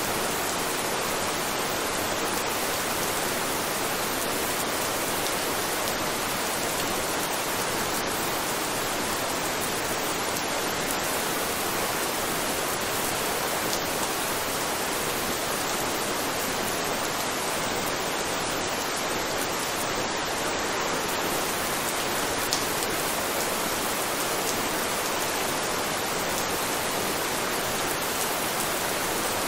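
Steady rain: an even hiss of falling rain, with a faint tick of a drop here and there.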